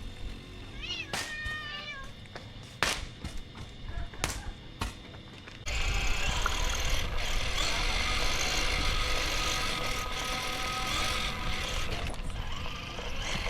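A stray cat meows once about a second in, among a few sharp clicks. From about six seconds in, a steady hiss of background noise takes over.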